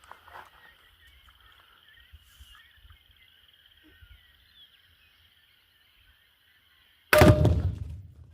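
One sudden, very loud blast about seven seconds in: a rifle shot sets off half a pound of Tannerite packed inside a microwave oven. The boom dies away over about a second into a low rumble.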